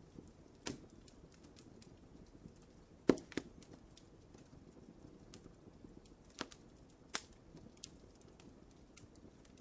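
Wood fire in a fireplace crackling softly, with scattered sharp pops over a low rumble of flame. The loudest pop comes about three seconds in, with others later on.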